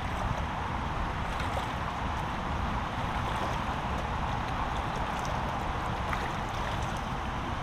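Swollen, fast-flowing brook rushing steadily through a narrow channel and churning up white foam, in spate after a storm.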